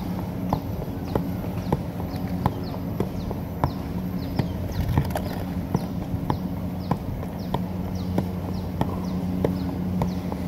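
Soccer ball being juggled with the feet: a steady rhythm of kicks, about one and a half touches a second, over a steady low hum.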